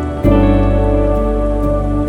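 Background music with steady sustained tones and a deep bass coming in about a quarter second in.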